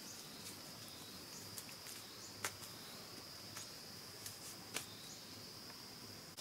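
Steady, high-pitched insect drone, with a few sharp, light clicks scattered through it.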